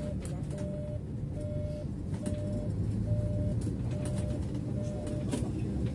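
Bus turn-signal beeper sounding a steady on-off tone, a little more than one beep a second, over the low running of the bus engine; the beeping stops about five seconds in, as the turn is finished, with a sharp click. Light rattles and clicks from the cab come and go.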